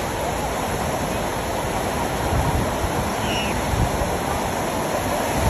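Sea surf washing onto a beach, a steady rushing wash, with wind gusting on the microphone in low rumbles now and then.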